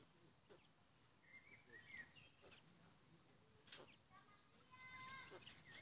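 Faint, soft chirps from quail cocks: a few short calls spread through, with several light ticks between them.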